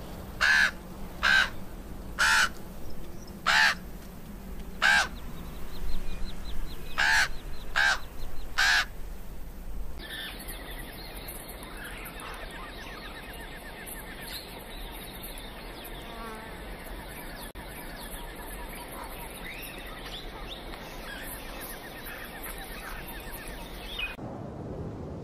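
Crows cawing loudly, about eight separate calls over the first ten seconds. After that, a softer forest background of many small bird chirps runs on until shortly before the end.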